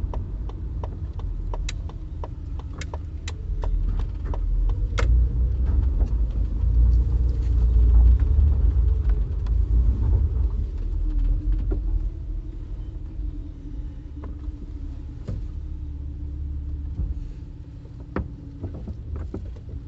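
A car's engine and road rumble heard from inside the cabin as it drives slowly and pulls into a garage. A run of sharp ticks comes about twice a second in the first five seconds. From about eleven seconds in the engine settles to a steady, quieter hum.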